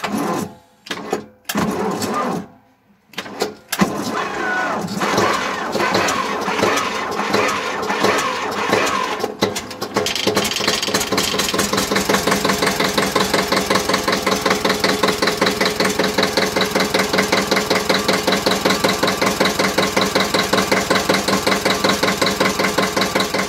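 Dutra UE-28 tractor's diesel engine starting from cold after glow-plug preheating with no other starting aid. It cranks and fires in short broken bursts for the first few seconds, catches and runs unevenly with wavering speed, then about ten seconds in settles into a steady, evenly pulsing cold idle.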